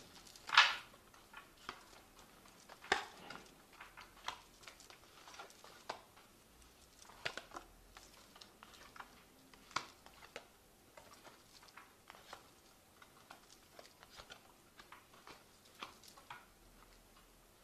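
Tarot cards being handled at a table: faint, scattered soft slaps and brushing sounds at irregular intervals, the loudest a brief swish about half a second in.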